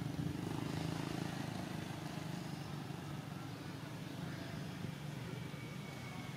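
Steady low hum of a motor vehicle's engine running, a little stronger in the first couple of seconds and then easing off.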